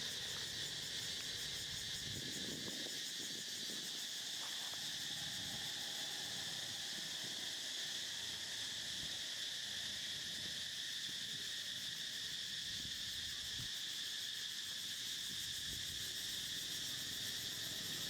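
Steady, high-pitched insect chorus, a continuous shrill drone with a fast fine pulse, and faint scattered rustling underneath.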